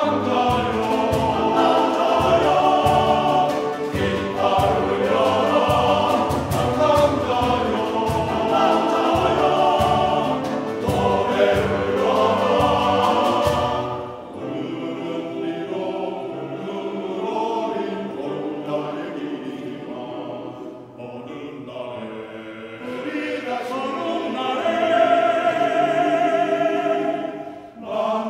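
Men's choir singing with piano and a percussionist on snare drum and cymbal; the drum strokes stop about halfway through, leaving softer choir and piano, which swell again near the end.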